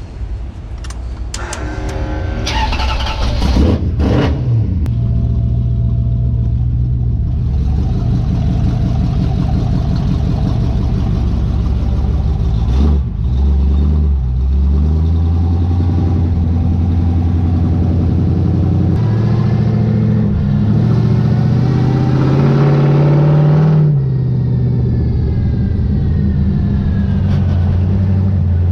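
1968 Dodge Charger stock car's engine driving under load. It revs up hard over the first few seconds, then pulls steadily with a brief dip about thirteen seconds in. From about nineteen seconds it climbs in pitch again and drops off sharply near twenty-four seconds.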